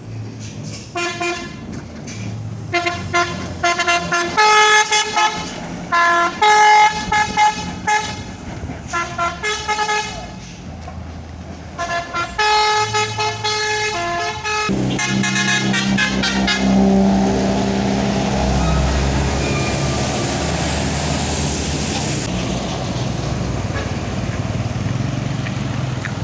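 A basuri-type musical air horn on a bus or truck playing a tune in short separate notes that change pitch. About fifteen seconds in it stops, and the engine of a heavy vehicle is heard going by, loudest a couple of seconds later.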